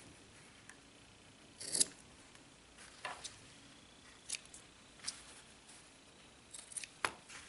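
Fabric scissors snipping off the excess ends of fabric strips on a denim piece: about six separate, fairly quiet snips spaced a second or so apart.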